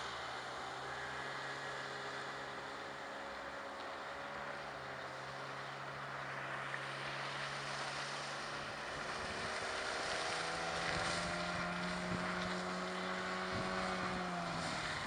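HDX T9.8 BMS two-stroke outboard motor on a small inflatable boat, running under way with a steady engine drone. About nine seconds in its note shifts and it grows louder. Wind noise on the microphone throughout.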